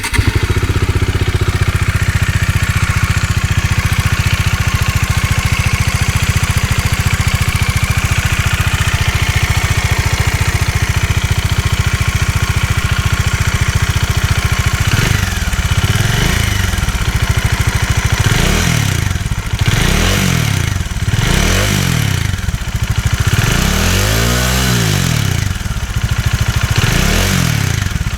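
Bajaj Dominar 400's single-cylinder engine idling, then blipped on the throttle about eight times in the second half, one longer rev about three-quarters through. It carries an engine-side tapping noise that the owner puts down to loose tappets: shim noise, a known fault of the 2019 UG version.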